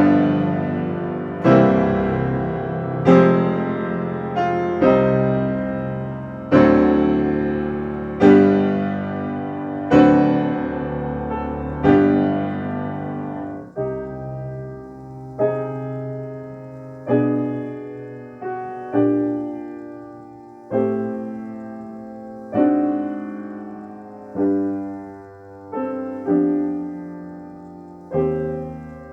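Solo piano playing slow, full chords, one struck every second and a half to two seconds and left to ring. Loud at first, then markedly softer from about halfway.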